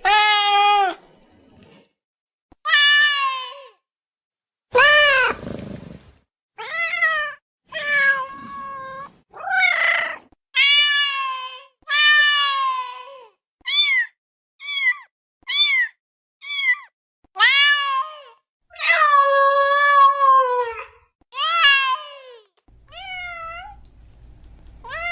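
Domestic cat meowing over and over: more than a dozen separate meows with short silent gaps between, some long and drawn-out with bending pitch, others short and high.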